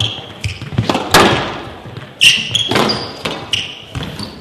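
Squash rally: sharp cracks of the ball off rackets and court walls, roughly every half second, echoing in the hall. Short squeaks of players' shoes on the court floor come in between.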